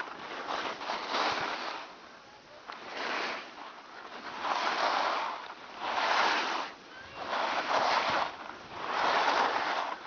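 Edges carving and scraping on packed snow in turn after turn on a downhill run, a swish about every one and a half to two seconds.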